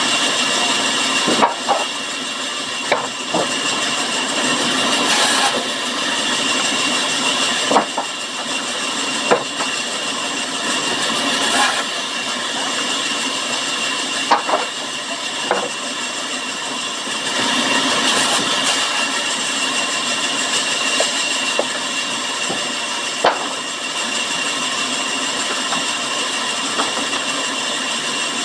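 Sawmill saw running steadily through wood with a constant high whine, broken by irregular sharp knocks.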